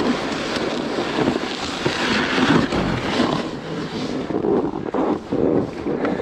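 Snowboard edge scraping and sliding on hard-packed snow while side-slipping down a steep slope, with wind on the microphone. From about four seconds in, it comes in repeated swishes.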